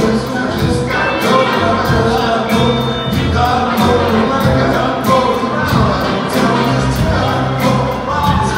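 Live rock band with a horn section playing a funk groove: electric guitar, upright bass, keyboards and a steady drum beat, with voices singing over it.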